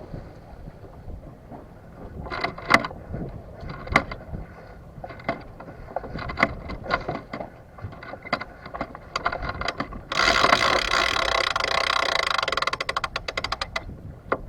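Sailboat deck gear clicking: scattered sharp clicks and knocks, then about ten seconds in a loud run of rapid ratcheting clicks for about four seconds, like a winch being cranked as a line is hauled in.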